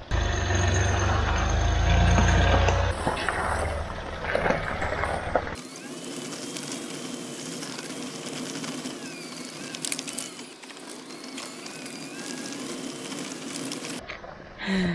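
Land Rover Discovery 3 with its TDV6 V6 diesel driving slowly over a loose, rocky gravel track: engine running and tyres crunching over stones. The sound is heaviest in the first three seconds and changes abruptly about five seconds in and again near the end, where the shot changes.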